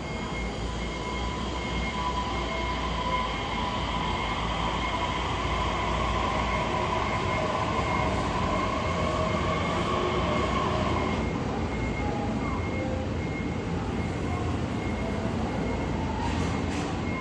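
Electric commuter train pulling out of the station: a rising motor whine over the rumble of wheels on the rails, the whine dropping away about eleven seconds in.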